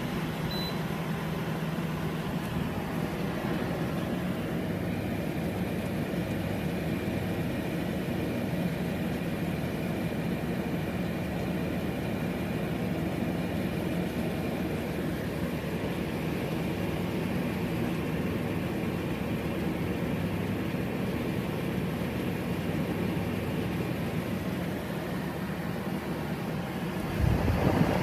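A 2017 Gree 10,000 BTU window air conditioner running in cooling mode: a steady fan and compressor hum, with a faint high whine joining about five seconds in. A louder low rumble comes in near the end.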